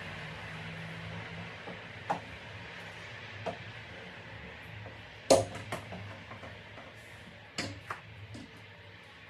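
Several short knocks and clatters of household objects being handled, the loudest about five seconds in and another pair near eight seconds, over a low steady hum.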